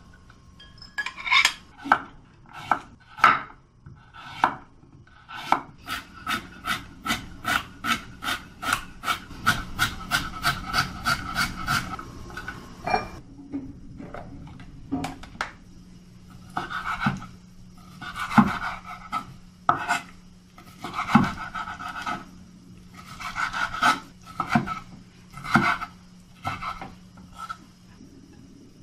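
Kitchen knife chopping vegetables on a wooden cutting board: a quick, even run of strokes at about four a second, then bursts of scraping and rubbing on the board.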